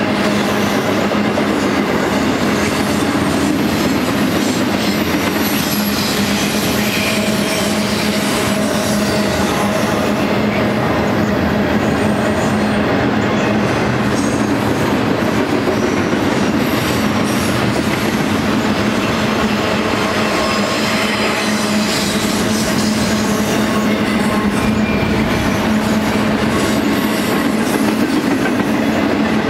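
Double-stack intermodal freight train's container well cars rolling past: a steady, loud rumble of steel wheels on rail with an even low hum, and now and then a faint high squeal.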